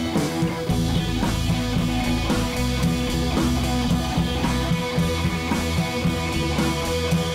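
Background rock music with guitar and drums, played at a steady beat.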